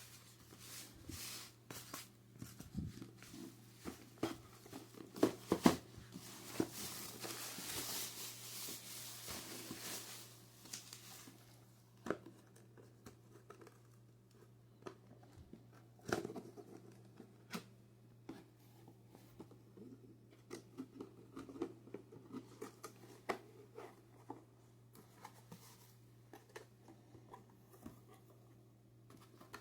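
Cardboard box and plastic packaging being handled and torn open while a new power tool is unpacked, with scattered knocks and clicks. A longer rustling, tearing stretch comes about six to eleven seconds in.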